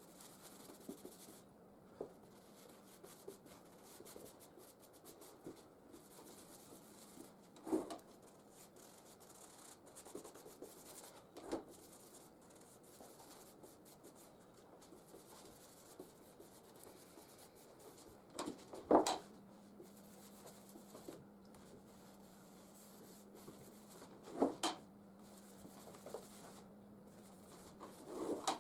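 Faint rubbing strokes of an applicator spreading acrylic varnish over wooden floorboards, with a few short knocks, the loudest about two-thirds of the way through.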